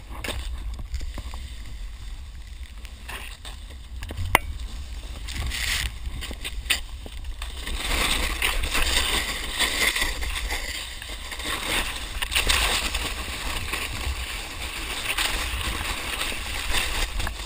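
Snowboard sliding and carving through powder snow: a continuous hissing rush over a low rumble of wind buffeting the pole-mounted GoPro's microphone, growing louder through the middle, with one sharp knock about four seconds in.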